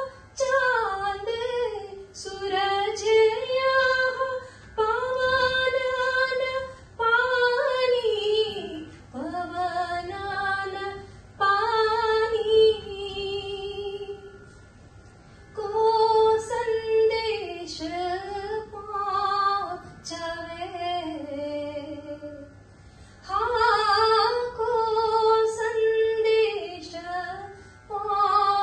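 A woman singing a devotional bhajan solo and unaccompanied, in long held phrases separated by short breaths.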